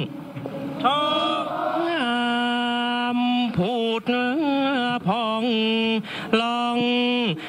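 Thai royal barge chant (kap he ruea) sung by a male chanter in long held notes that slide and waver in pitch, with short breaks between phrases.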